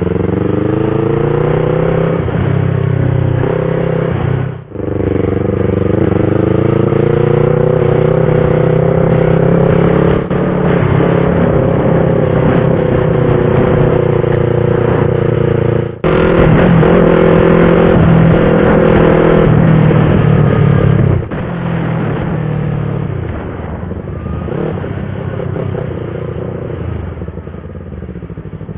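Yamaha R25's 250 cc parallel-twin engine under way: the note climbs steadily, breaks off briefly at gear changes about four and a half seconds in and again about sixteen seconds in, then drops to a lower, quieter steady note after about twenty-one seconds as the throttle eases.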